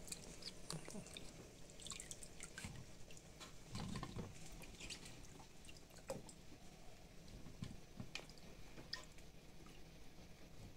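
Faint splashing and dripping of rinse water as a hand lifts carrot sticks out of a plastic basin, with scattered light taps as the sticks drop into a plastic colander.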